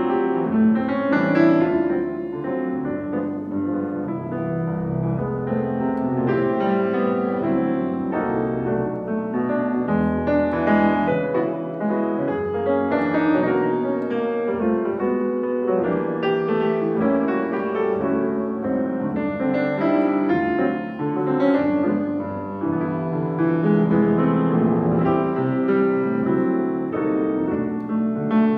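Solo piano played on a Steinway & Sons grand piano: a continuous piece of chords and melody with no pauses.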